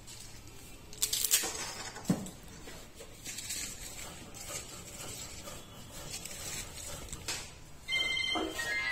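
Dry bay leaves and a plastic bag crinkling and rustling as they are handled, with a few sharp clicks early on. About eight seconds in, a phone ringtone starts: a bright repeating electronic melody.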